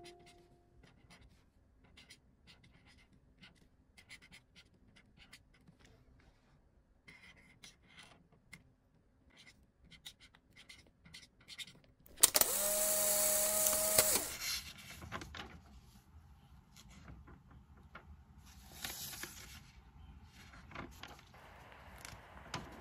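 Faint scratching of a pen tip on a small white card as words are hand-lettered, many short strokes, with a louder squeaking stroke of about two seconds a little past the middle.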